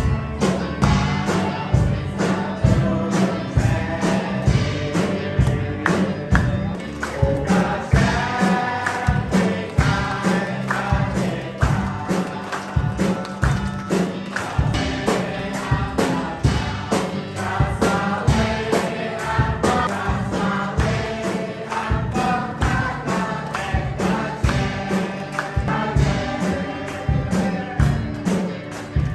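A group singing a Christian hymn together over a steady percussion beat.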